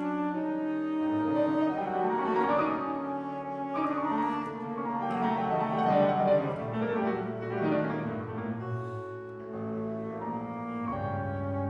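Contemporary chamber music from a quintet of flute, clarinet, electric guitar, piano and double bass: held notes, a busy passage of quick piano and ensemble figures in the middle, and long low bowed-bass notes in the second half.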